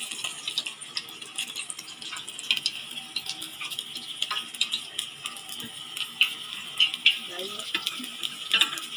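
Hot oil sizzling and crackling around a whole chicken being deep-fried, with many short sharp pops throughout.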